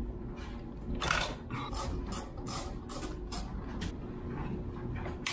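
Hand socket ratchet clicking in a run of short strokes while bolts are loosened on top of the engine.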